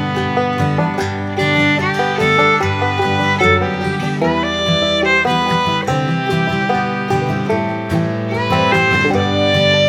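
Background music: an upbeat fiddle tune over plucked guitar in a bluegrass style.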